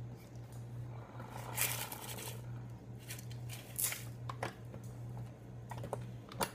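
Hand-crank blender jar being gripped, twisted and worked on its base to free a jammed crank: scattered clicks and knocks of plastic and metal, with two short scraping, rustling stretches, over a low steady hum.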